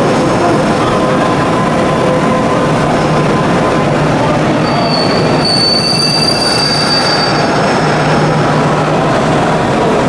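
Electric commuter train moving through the station with a loud, steady running rumble. About halfway through, a high-pitched wheel squeal sets in and fades out a few seconds later.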